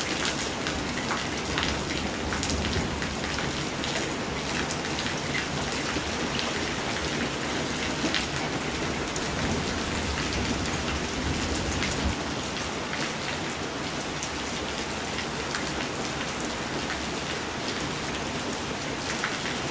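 Steady rain falling on a wet paved patio, with many individual drops tapping close by.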